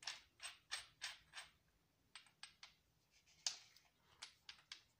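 Faint clicking and rattling of the keyed chuck on a Dorkel DRD-500-2 impact drill as it is turned and wiggled by hand: a quick run of about five clicks, a few more after a pause, one sharper click in the middle, then more. The chuck has play; it is wobbly on this new drill.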